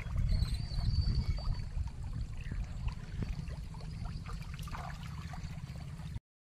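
Water sloshing with small scattered splashes from fish crowded in a drawn-in fishing net, under a steady low rumble of wind on the microphone. The sound cuts out completely for a moment near the end.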